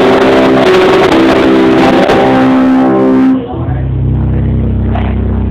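Live band playing loud music with long held guitar chords, which stops abruptly about three seconds in, leaving a steady low electrical hum.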